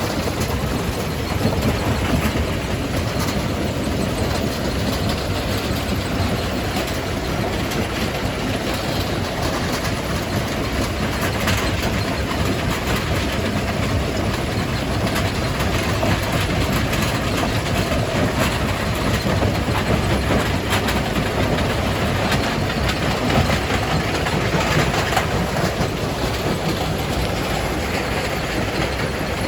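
Jaw crusher running and crushing rock: a steady heavy mechanical rumble with constant irregular clattering and knocking of stone.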